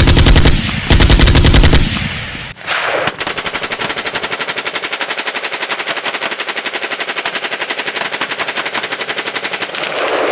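Two loud bursts of automatic gunfire in the first two seconds. After a short pause comes one long unbroken burst of full-auto fire from an AK-pattern rifle with a drum magazine, rapid and even, which stops near the end.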